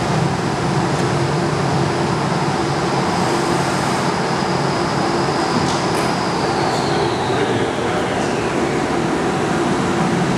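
Hawk flight simulator's jet engine and rushing-air sound during the takeoff roll: a steady, loud rumble and hiss with a high whine that slides lower in pitch about two-thirds of the way through.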